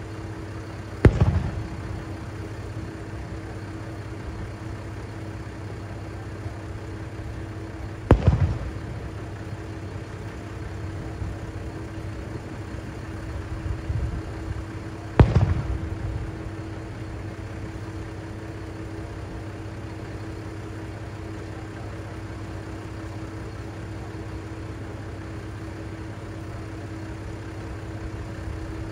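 Three fireworks shells bursting, each a sharp boom trailing into a rumbling echo, about seven seconds apart. Under them runs the steady hum of the diesel railcar Kiha 3710-02's engine idling.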